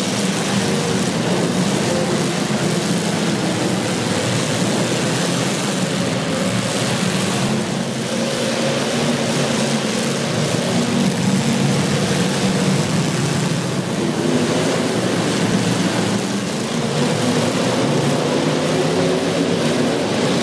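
Demolition derby car engines running together in a loud, steady drone.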